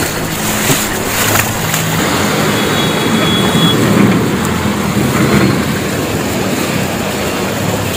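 Road vehicle noise at a flooded street: a motor vehicle's low, even engine hum under a steady wash of noise.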